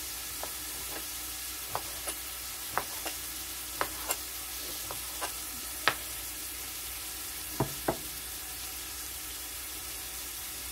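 Knife dicing raw chicken breast on a cutting board: about a dozen irregular sharp knocks of the blade on the board, the loudest about six seconds in. Underneath, a steady hiss of diced onion sizzling in a saucepan on the gas burner.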